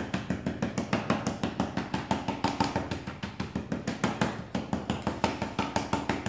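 A fork pricking raw puff pastry in a disposable aluminium tray, its tines going through to the tray bottom with quick, regular taps, about six a second. The pastry is being docked so that it will not puff up when baked.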